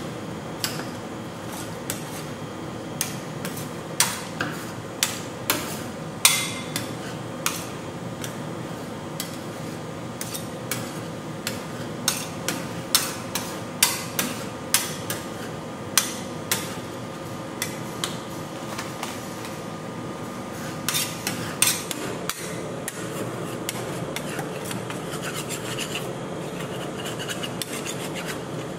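Steel scrapers chopping and scraping a cream and potato-chip ice cream mixture on a metal cold plate. The blades strike the plate in irregular sharp clacks, with scraping in between, over a steady hum. The strikes thin out over the last several seconds.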